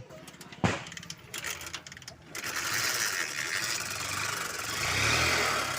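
Honda Shine's 125 cc single-cylinder four-stroke engine starting up about two seconds in after a click, then running with a harsh, noisy sound that rises briefly near the end. The mechanic calls the sound very bad; the bike lacks pickup and is hard to start, and is due a full engine overhaul.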